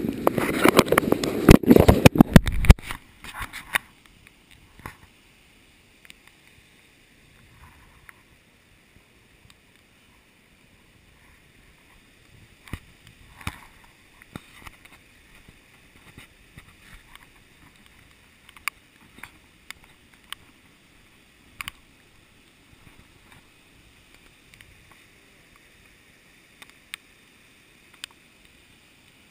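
Flooded creek water rushing, heard loud and muffled for the first couple of seconds, then dropping suddenly to a faint steady hiss broken by occasional sharp taps.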